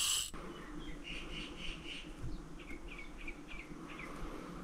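A brief buzz of braided line being pulled off a spinning reel, cutting off just after the start. Then faint bird chirps, with a quick run of short falling chirps in the second half, over a faint steady hum of bees.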